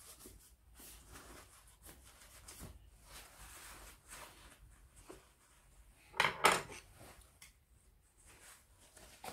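Paper towel wiping and rubbing over a slate clock case in a series of soft strokes. About six seconds in there is a louder double scuff or knock.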